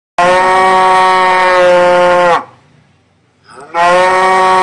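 A cow mooing twice. The first moo is long and even in pitch and drops off as it ends. After a gap of over a second, a second moo starts with a rise in pitch and holds steady.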